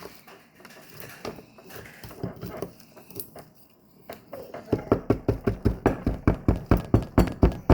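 Tools scraping at a hard plaster gem-dig block, then a run of rapid, even knocks starting about two-thirds of the way in, about four a second: the block being chipped with a chisel.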